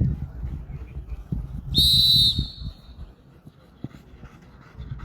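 A single short whistle blast, a steady high tone lasting about half a second, about two seconds in, over low rumbling noise.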